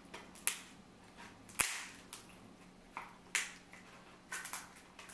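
Several sharp cracks and snaps of a king crab leg's hard shell being broken open, irregularly spaced, the loudest about a second and a half in.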